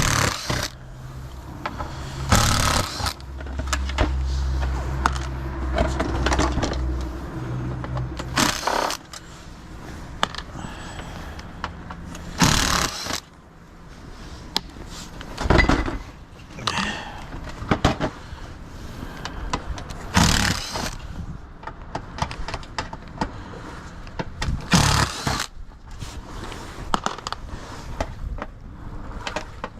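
Clunks, scrapes and clatter of tools and plastic and metal parts while a Toshiba AW-45M7 top-loading washing machine is taken apart, with a low steady hum for several seconds near the start.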